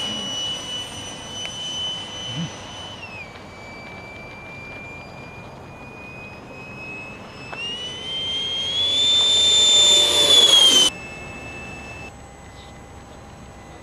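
High whine of a 90mm electric ducted fan on a radio-control L-39 jet in flight. About three seconds in the pitch drops, and from about eight seconds it climbs and grows louder before cutting off suddenly near eleven seconds, leaving a faint steady hum.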